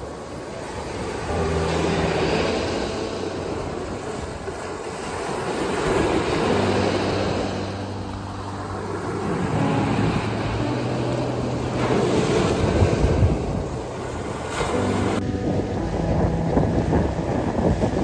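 Small ocean waves breaking and washing up on a sandy beach, the surf swelling and easing every few seconds.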